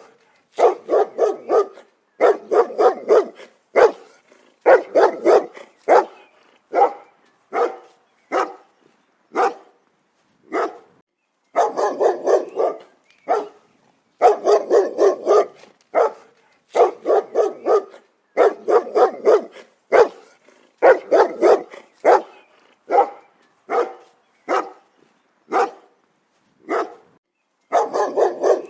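A dog barking loudly and repeatedly, deep short barks in quick runs of two to four with brief pauses between.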